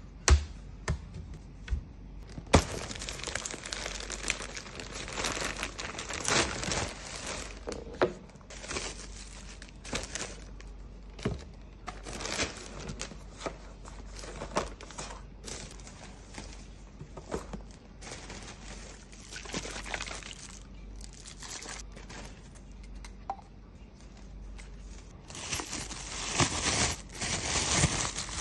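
Plastic takeaway packaging crinkling and rustling in irregular bursts as food containers, cutlery packs and cling film are handled and unwrapped, with many small clicks and knocks. The two sharpest clicks come in the first few seconds, as the metal legs of a folding lap tray are snapped open.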